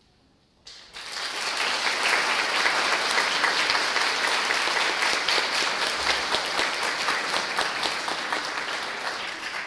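Brief near silence, then an audience starts applauding about a second in: many hands clapping, dense and steady.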